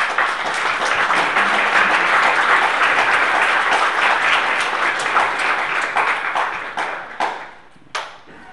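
Audience applauding: a dense patter of many hands clapping that thins out near the end to a few last separate claps, then cuts off abruptly.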